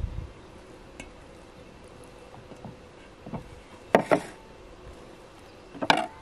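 Enamel and clay bowls being moved and set down on a wooden table: a soft thump at the start, a light tap about a second in, then two louder clatters, one about four seconds in as the enamel bowl is put down and one near the end as a hand goes into the bowl of onions.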